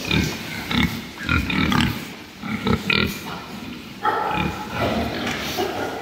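A pen of young white pigs grunting, many short irregular calls overlapping, getting denser about two-thirds of the way through.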